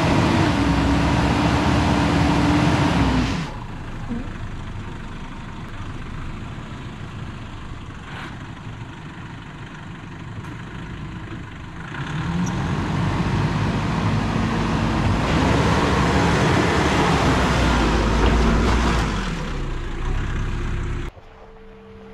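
Four-wheel-drive ute's engine revving under load as it climbs a rutted dirt track. It eases off for several seconds, then revs hard again with rising and falling pitch, and cuts off suddenly near the end.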